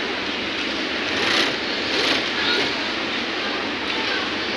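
Steady mechanical whir of an industrial sewing machine workshop, with a few short louder swells between about one and two and a half seconds in.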